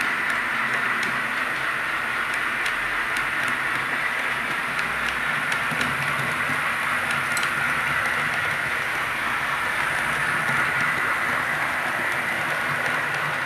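Model train running along the layout track: a steady whirring hiss, with small clicks scattered through the first half.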